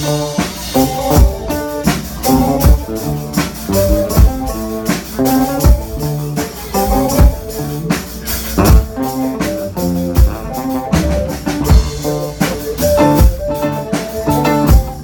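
A small band playing a song: a drum kit keeps a steady beat under pitched keyboard and guitar parts.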